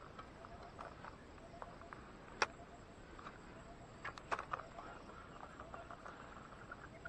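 Faint, steady chorus of small animals chirping in quick repeated pulses. There is one sharp click about two and a half seconds in, and a short run of clicks around four seconds in as the baitcasting reel and rod are handled.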